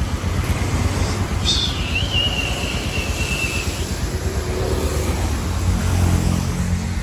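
Motorcycle engine running with a steady low rumble, its note rising briefly about five seconds in as the bike moves off. A high whistling tone sounds for about two seconds near the start.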